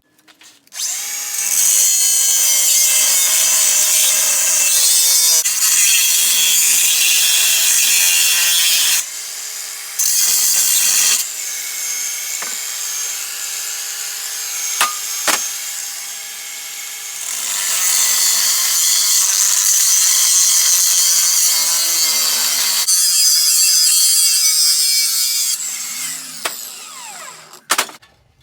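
Power tool cutting metal on a truck's cab hinge, running in long passes with its motor pitch wavering under load. It starts about a second in, stops briefly around nine seconds, eases off in the middle, and cuts off near the end.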